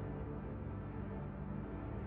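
Ambient background music: a steady, quiet drone of sustained low tones.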